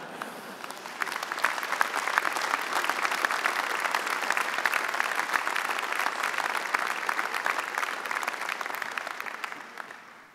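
Audience applause that builds over the first second, holds steady, then fades out near the end.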